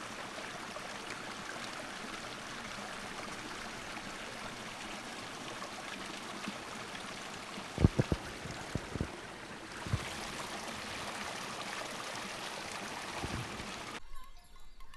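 Steady rush of a running stream, with a few short, soft low thumps about halfway through. The water sound drops away abruptly near the end.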